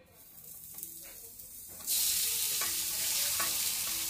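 Grated carrots sizzling as they are tipped into hot ghee in a black iron kadhai. The sizzle builds, then turns much louder about two seconds in as the bulk of the carrots drops in, with a few light clinks of the metal slotted spoon.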